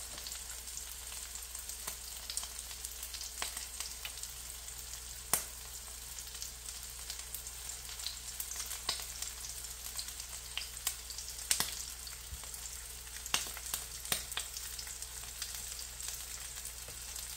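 Bean sprout and shrimp omelette frying in a pan: a steady sizzle with scattered pops and crackles at irregular intervals.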